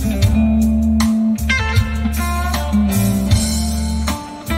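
Guitar-led music with a strong bass line, played back over a car's newly upgraded audio system for a listening test.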